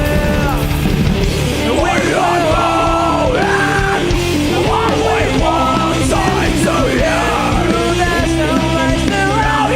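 A live band playing a metalcore song: distorted guitars with a bending melodic lead line over bass and drums, and shouted vocals, heard through the mixing desk's direct feed.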